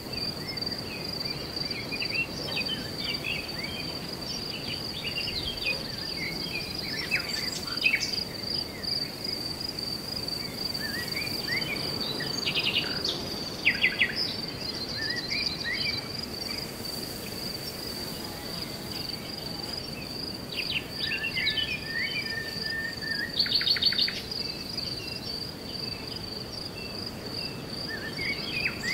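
Insects, crickets by the sound, keep up an unbroken high-pitched trill. Birds chirp here and there over it, with a few quick trilled bursts about halfway through and again in the last third.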